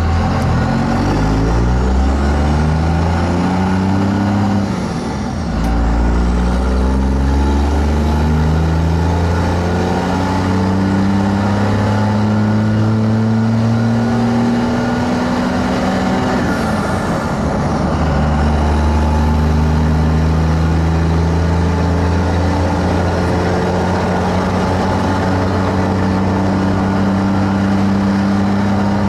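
2001 Dodge Ram 2500's 5.9-litre 24-valve Cummins turbo-diesel inline-six accelerating through the gears on a 3-inch straight-pipe exhaust. The engine pitch climbs, drops sharply at shifts about five seconds in and about seventeen seconds in, then climbs again. Faint high turbo whistles fall away at the shifts, from the Holset turbo with its silencer ring removed.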